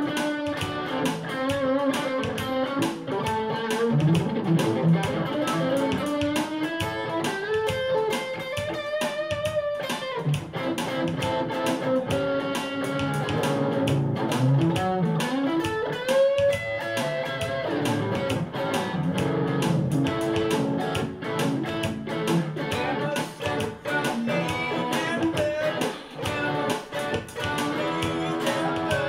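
Electric guitar playing an instrumental lead in a gospel shuffle: single-note lines with notes bent and slid up in pitch, over a steady percussive beat.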